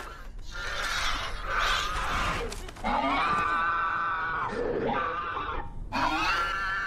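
A boy screaming in terror: three long, high screams, each held for a second or more, with harsher, rougher sounds between them.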